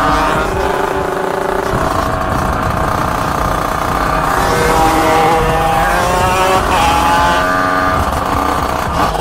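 Motorcycle engine running on the move, its pitch rising and falling several times as it speeds up and eases off.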